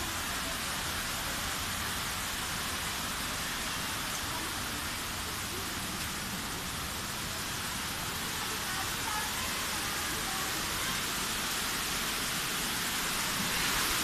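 Steady rushing of a waterfall pouring over rock, growing a little louder near the end.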